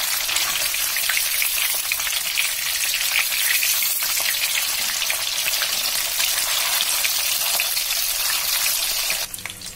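Soya chaap sticks shallow-frying in hot mustard oil in a kadhai: a dense, steady sizzle full of small crackles and pops. It drops away sharply near the end.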